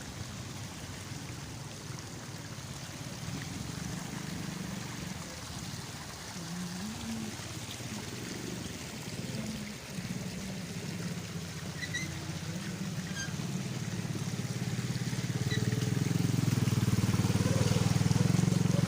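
A motor vehicle engine running with a low hum, growing louder over the last few seconds, over a steady background hiss. A few faint high chirps come through about two-thirds of the way in.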